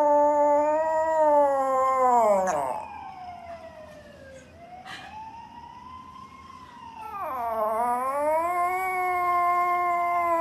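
A small poodle howling in long, drawn-out notes. The first howl bends down and breaks off about two and a half seconds in. A quieter stretch follows. A second long howl starts with a dip in pitch around seven and a half seconds in and then holds steady.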